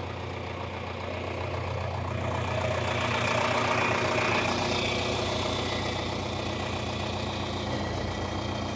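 Old farm tractor engine idling steadily, growing a little louder for a couple of seconds near the middle.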